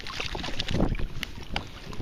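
Wind buffeting the microphone over water lapping and splashing against a kayak's hull, with scattered small knocks and clicks.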